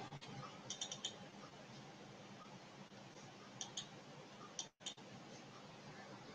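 Faint computer mouse clicks in three short clusters, a couple of quick double-clicks, over a low steady hiss.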